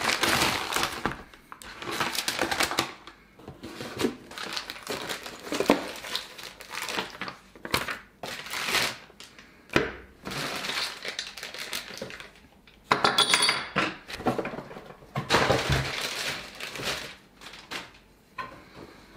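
Cardboard and paper packaging being opened and handled, with irregular rustling and crinkling, box flaps, and scattered clinks and knocks as the parts of a projector ceiling mount are lifted out.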